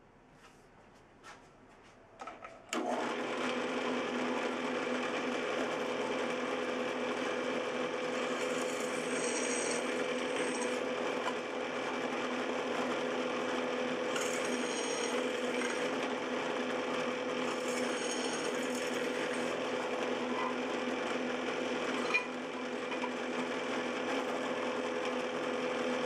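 Drill press motor switched on about three seconds in and running with a steady hum, while a #8 twist drill bit is fed into an aluminum plate; the cutting adds a higher hiss three times as holes are drilled.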